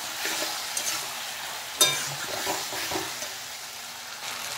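Potatoes and ridge gourd sizzling in oil in a kadai while a metal spatula scrapes and knocks against the pan as they are stirred, with one sharp clank about two seconds in.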